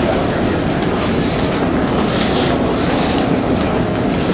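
Cabin noise of a Boeing 737-800 rolling on the ground: a steady loud rumble, with a rush of rattling noise about once a second.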